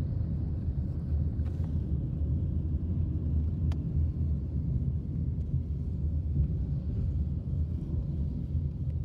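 Distant Airbus A320-216 jet airliner passing high overhead, its CFM56 turbofan engines heard as a steady low rumble.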